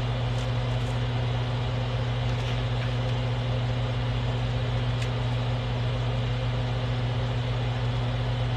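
Steady low hum at an even level, with a few faint ticks.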